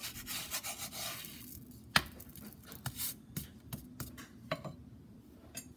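Metal spatula clicking and scraping against a cast-iron tawa as a stuffed paratha is pressed on it. A hissing rush fills the first second or so, then come scattered sharp clacks, the loudest about two seconds in.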